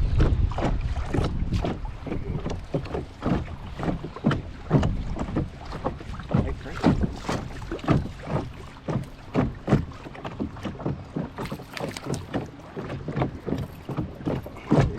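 Wind-driven chop slapping against a small boat's hull in quick, irregular splashes, with wind rumbling on the microphone at the start.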